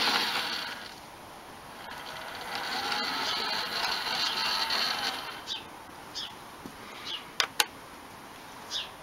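Model Thomas the Tank Engine locomotive running along garden railway track: a light mechanical running noise, then short clicks, two of them sharp about seven seconds in.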